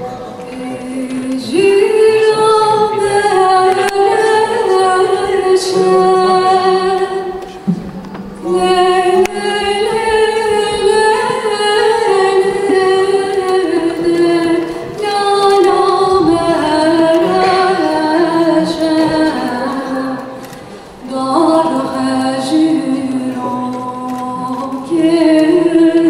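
A woman singing a slow Turkish song in long, sustained phrases, with short breaks between phrases every five to seven seconds.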